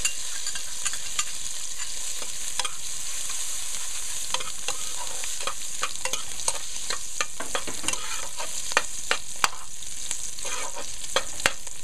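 Small red shrimp frying in hot oil in a stainless steel pot: a steady sizzling hiss with scattered sharp pops and crackles, which come more often in the second half.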